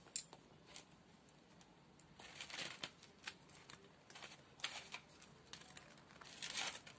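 Fried urad dal vadas dropped one after another into a steel bowl of salted water, giving a string of faint splashes, several in the second half, after a short click near the start.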